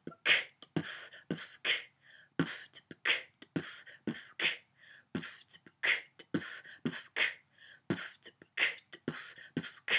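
A woman beatboxing a hip-hop beat with her mouth: kick-drum and snare or hi-hat sounds in a steady rhythm of sharp strokes.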